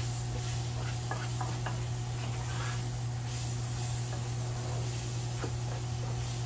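A spatula stirring rice and mixed vegetables in a skillet, giving a few faint light taps and scrapes, over a steady low hum.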